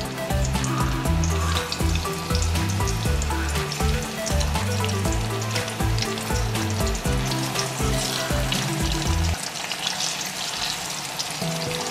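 Masala-marinated chicken pieces frying in hot coconut oil in a non-stick kadai, crackling and sizzling steadily as more pieces are added by hand, over background music.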